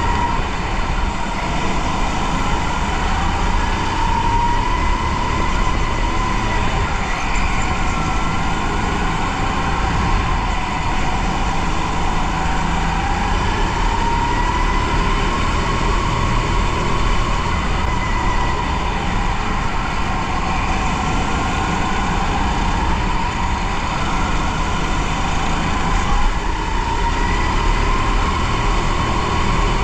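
Go-kart at racing speed, heard from the driver's seat: a steady low rumble under a motor whine whose pitch slowly rises and falls through the corners and straights.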